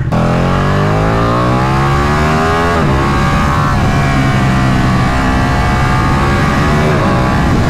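Ducati 959 Panigale's 955 cc V-twin engine through its stock exhaust, rising in pitch as the bike accelerates away. There is a gear change about three seconds in, after which it holds a steadier note.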